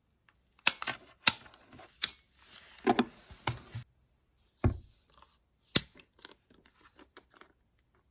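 Small objects being handled: several sharp clicks with rustling for about three seconds, a dull knock about halfway through, then a loud click and a few light ticks.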